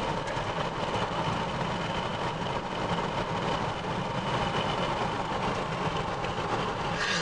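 Steady road and engine noise of a car driving along a highway bridge, heard from inside the cabin.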